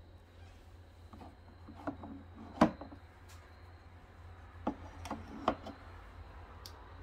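Hen's eggs set by hand into a wooden rolling egg rack, clacking against the wooden ramp and against the other eggs in a handful of short, sharp knocks, the loudest about two and a half seconds in.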